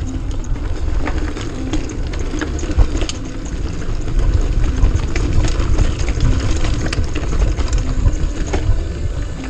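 Mountain bike being ridden over rough, rocky trail: a steady low rumble on the microphone, broken by frequent clicks and rattles as the bike jolts over the ground.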